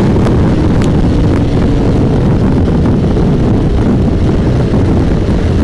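Steady wind rush over the microphone of a motorcycle riding at speed, with the bike's engine running beneath it.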